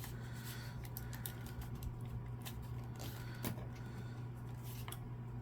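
Scattered small plastic clicks and taps from handling and pressing the parts of an Xbox One controller, over a steady low hum.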